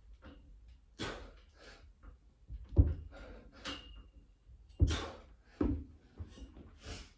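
A set of pull-ups on a freestanding pull-up station: short, sharp breaths with the reps, and two loud knocks about two seconds apart.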